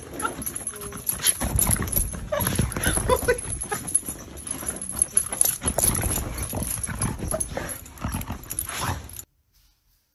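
Dog scuffling and pawing at close range: irregular thumps and rustling with a few short dog noises. It cuts off suddenly near the end.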